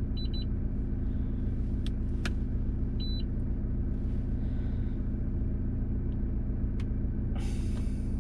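Car engine idling steadily, with two short high beeps in the first half and a brief hiss near the end.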